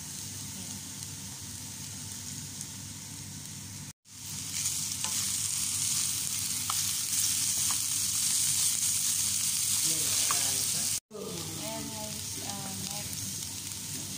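Bitter gourd, broccoli and cauliflower sizzling in oil in a frying pan while a wooden spoon stirs them, with a few faint scrapes. The sizzle gets louder about four seconds in and drops back about eleven seconds in, each change marked by a brief dropout.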